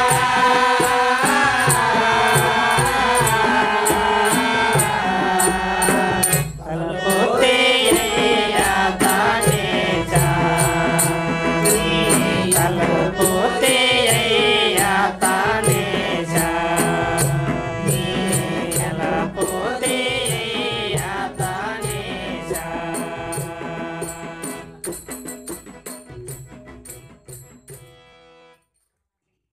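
Devotional bhajan singing of a Rama kirtana with a steady percussion beat of sharp, high-pitched strikes. The music fades out over the last few seconds and stops just before the end.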